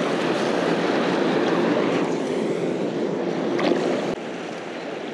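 Steady rushing of wind and water in the shallows, easing slightly about four seconds in, with a small knock just after.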